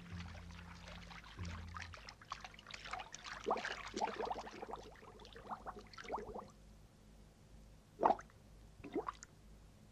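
Bathwater splashing and pouring in a run of short bursts, then two brief splashes later on. A low held music note dies away about two seconds in.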